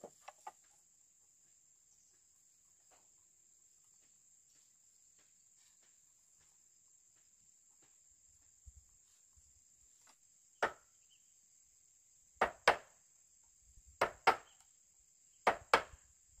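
Sharp blows on wood, mostly in quick pairs, coming about every second and a half through the second half, with a couple of lighter knocks at the start. A steady high insect buzz runs underneath.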